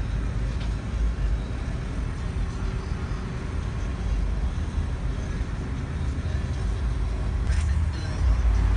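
Low, steady rumble of a car idling, heard from inside the cabin.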